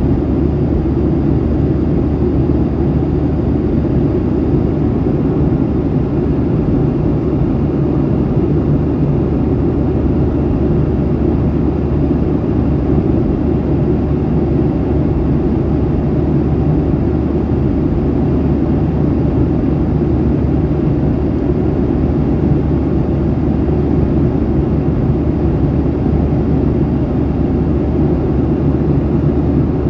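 Airliner's jet engines running steadily, heard inside the passenger cabin as an even low rumble with a steady hum.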